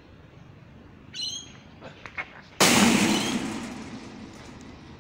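A short bird chirp about a second in, then a couple of sharp knocks. Past halfway comes a sudden loud crash as a cricket ball strikes the practice net close by, rattling and fading over a second or so.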